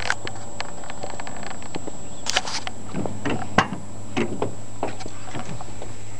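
Scattered footsteps and light clicks and knocks, with one sharper click about three and a half seconds in, over a steady low hum.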